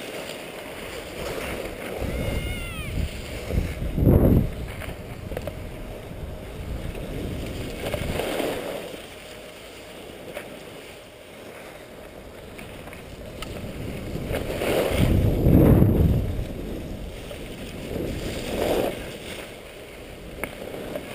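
Skis sliding and scraping over packed snow during a downhill run, with wind rushing over the microphone. The noise swells with each turn, loudest about four seconds in and again about fifteen seconds in.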